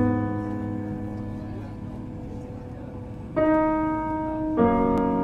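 Background music: slow, sustained chords that fade away, with a new chord struck about three and a half seconds in and another near the end.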